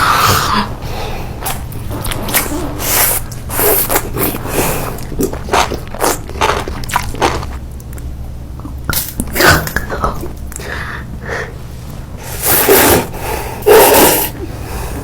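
Close-up eating: a string of short, irregular bites and chewing noises, with two louder bites near the end.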